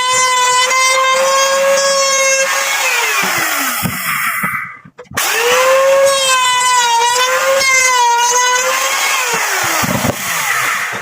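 Electric power tool motor running with a high-pitched whine, then winding down to a stop. It starts up again, runs steadily and winds down a second time near the end.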